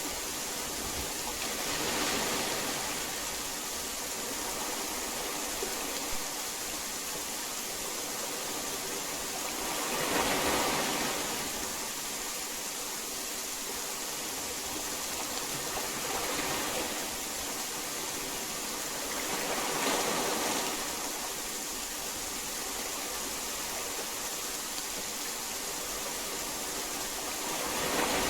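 Heavy rain falling in a steady hiss, swelling louder in brief surges about five times.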